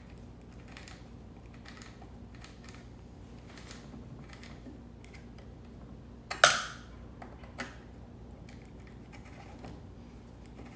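Light scattered clicks and rattles of a new chainsaw's parts being handled and adjusted, with one sharp loud clack about six seconds in and a smaller click soon after.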